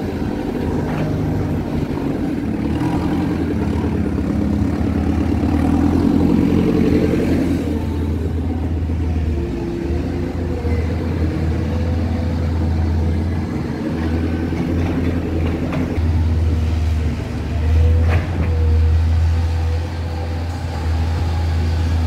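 Diesel engines of heavy earthmoving machinery, a backhoe loader and a wheeled excavator, running while they work, a steady low drone that swells and eases.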